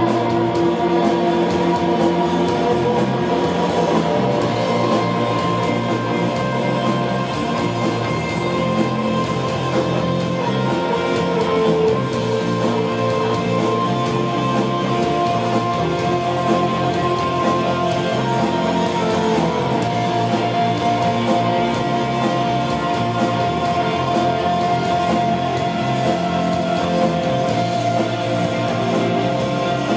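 Live rock band music: electric guitars and drums playing a dense, steady wall of sound with long held guitar notes, in the shoegaze style.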